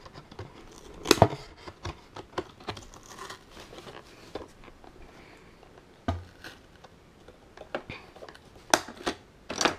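Scissors snipping at packaging, with sharp clicks among a faint rustle of cardboard and plastic. The loudest snips come about a second in and twice near the end.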